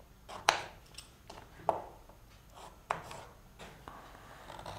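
Kitchen knife cutting raw peeled turnip into cubes on a wooden chopping board: a handful of sharp, irregularly spaced knocks as the blade goes through the turnip and strikes the board.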